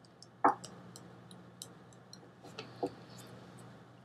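Faint, irregular light clicks and ticks, several a second, over a steady low electrical hum, with one short louder sound about half a second in.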